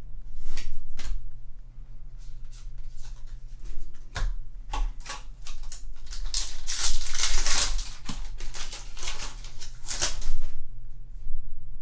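Foil trading-card booster pack wrapper crinkling and tearing open, amid the clicks and flicks of cards being handled; the loudest crinkling comes about seven seconds in. A low steady hum sits underneath.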